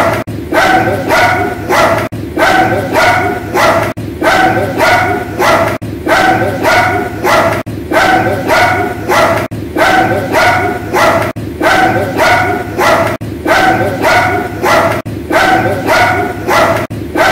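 Dog barking in a quick warbling series of yelps that sounds like a whooping war cry; the same short stretch of barks repeats in a loop about every two seconds.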